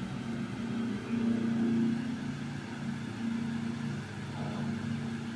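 Cosmos WIF-1803 18-inch industrial wall fan running and oscillating: a steady motor hum with the rush of air from the blades, a little louder for a moment about a second in.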